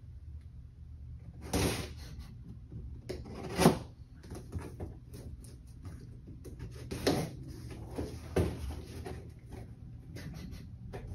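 Tall cardboard guitar box being opened by hand: the top flaps scraping and knocking in a few sharp bursts, four louder ones with small rustles and clicks between, the loudest about three and a half seconds in.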